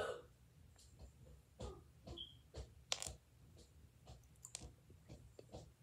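Irregular light clicks and taps of small objects being handled, with a sharper one about three seconds in.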